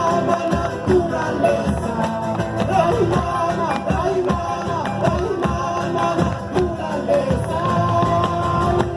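A live folk song: singing over instrumental accompaniment, with guitar.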